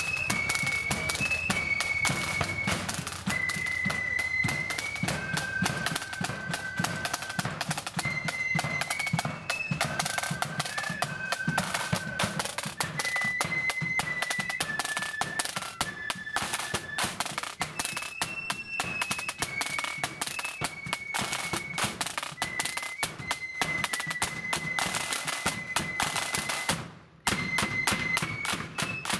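Marching flute band playing a tune in blood-and-thunder style: a high line of flutes carries the melody over rapid side-drum rolls and a bass drum beat. The sound drops out for a moment near the end.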